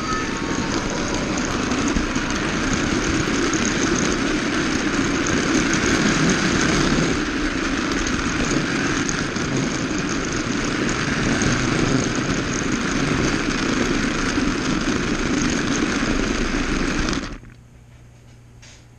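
Small electric motor and wheels of a Magic Tracks RC car running steadily along flexible toy track, heard from a camera riding on it as a continuous whirring rattle. It stops abruptly near the end, leaving only a faint low hum.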